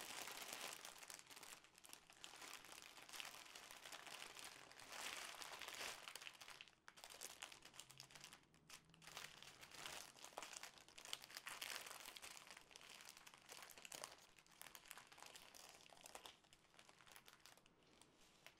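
Faint crinkling of a clear plastic sleeve as hands unwrap and handle a roll of bagged diamond-painting drills, in irregular spells with short pauses.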